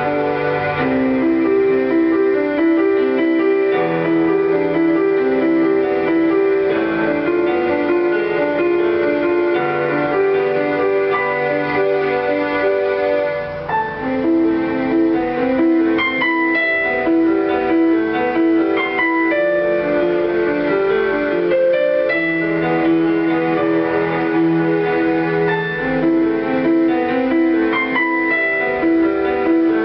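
Piano playing a flowing piece as a steady, continuous stream of repeating notes, with a brief lull between phrases about fourteen seconds in.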